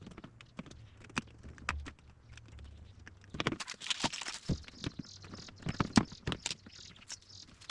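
Irregular clicks, taps and knocks of plastic plate holders being handled and fitted into an electrical switch board, sparse at first and busier from about three seconds in.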